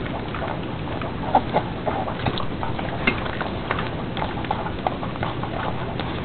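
A Chihuahua eating from a plate, its chewing and mouthing of the food heard as irregular small clicks and crunches.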